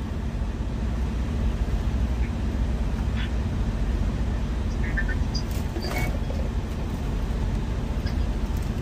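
Semi-truck's diesel engine idling: a steady low rumble with a constant hum. A few faint clicks and light knocks sound over it.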